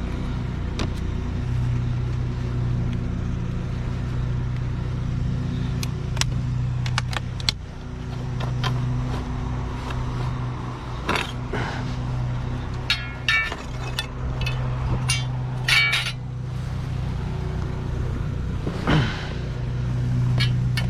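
A vehicle engine idling steadily while scrap metal is handled, with scattered metal clanks and clinks, the loudest and most ringing about halfway through.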